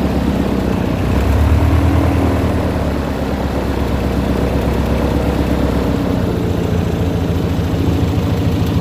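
Airboat engine and propeller running at low throttle, rising briefly about a second in, then settling back to an idle with an even, rapid low pulsing.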